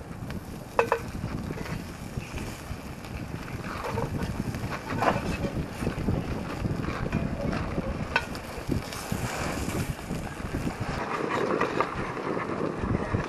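Wind buffeting the microphone: a steady low rumble, with a few faint clicks.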